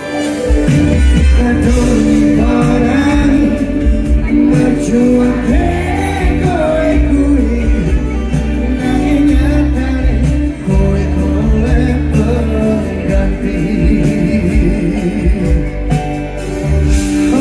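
Live band playing a Javanese pop song, with singing over bass, drums and guitar.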